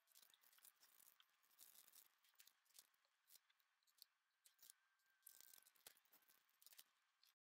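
Faint clicks and light rustling of small plastic storage containers and plastic bags of diamond-painting drills being handled. It cuts off suddenly near the end.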